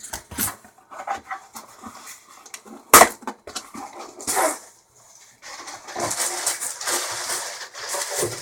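A cardboard shipping package being opened and unpacked by hand: scattered knocks and scrapes, one sharp knock about three seconds in, then steady rustling of packing material from about halfway through.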